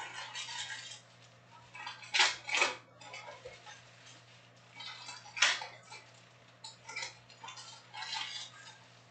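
Sealed foil trading-card packs crinkling and clattering against one another in several short, sharp bursts as they are picked up and stacked. A steady low hum runs underneath.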